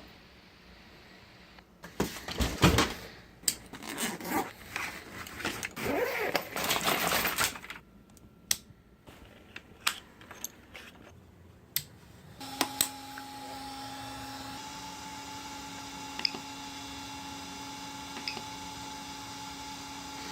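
Irregular clicking and rattling, as of small hard objects being handled, for the first dozen seconds. Then a steady machine hum with two steady tones starts and keeps running, with a couple of faint ticks.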